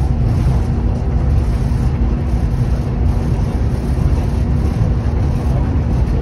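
Amtrak Piedmont passenger train running at speed: a steady, loud low rumble with a constant low hum, unchanging throughout.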